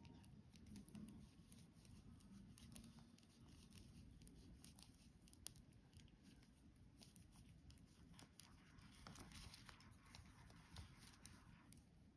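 Faint, irregular clicking and rustling of knitting needles and yarn as stitches are worked on circular needles, with one sharper click about five and a half seconds in.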